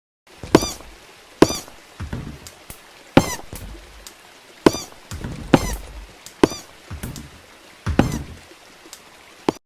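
Footsteps sound effect: about eight hard, sharp steps at an uneven pace of roughly one a second, each a click followed by a short thud.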